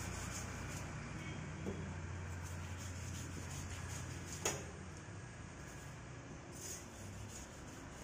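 Handling sounds as a large parrot fish and a big knife are moved about on a wooden chopping block: soft knocks and rubbing, with one sharp click about four and a half seconds in, over a steady low hum.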